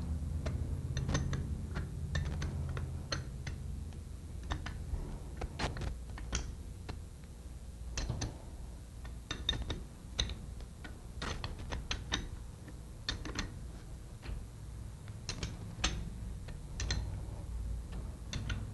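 Irregular light metallic clicks and ticks from a small hand wrench working on the bearing-cap bolts of a Corken sliding-vane pump, over a steady low hum.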